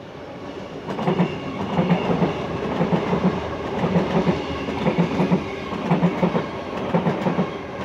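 A Sydney Trains Tangara double-deck electric train passing close by. Its wheels clack over the rail joints in a steady rhythm, a cluster of knocks about once a second over a running rumble, which grows louder about a second in.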